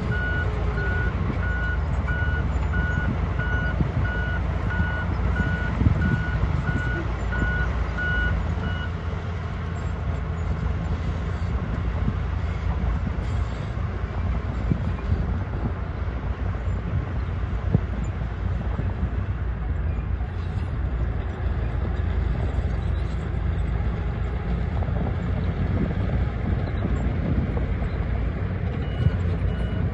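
Back-up alarm of a construction vehicle beeping at one steady pitch over the low, steady running of heavy diesel machinery. The beeping stops about nine seconds in and starts again near the end.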